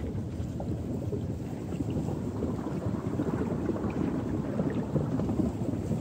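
Small waterfall rushing down an ice-covered cascade, a steady low rush of water.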